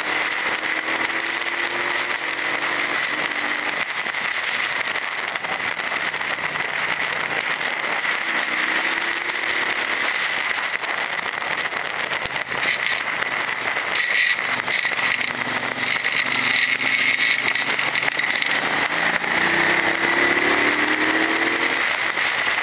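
Riding on a Triumph Speedmaster 1200, heard from an on-board camera: heavy wind and road rush over the microphone, with the bike's 1200 cc parallel-twin engine underneath. The revs rise and fall several times through the bends and climb again near the end.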